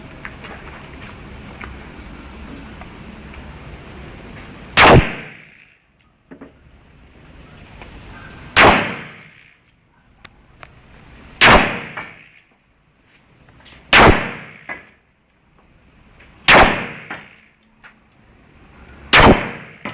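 Six single gunshots fired one at a time, spaced about two and a half to four seconds apart, each a sharp crack followed by a short echo.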